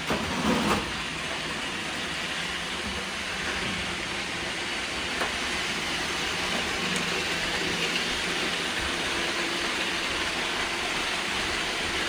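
Several Roomba robot vacuums running at once: a steady whir of suction fans and brushes, with a brief knock about half a second in.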